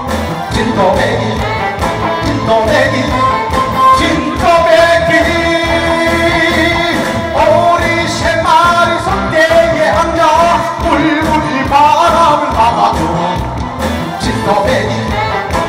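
Man singing a Korean trot song live into a handheld microphone over instrumental accompaniment with a steady beat, heard through the hall's sound system.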